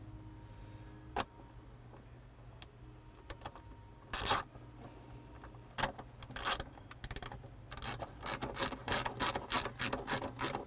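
Shouldered bolt with a nylon washer being screwed back into a billet aluminium Jeep roof lock: a few scattered clicks, then from about six seconds in a quick run of small clicks and scrapes, about three a second, as the bolt is turned in.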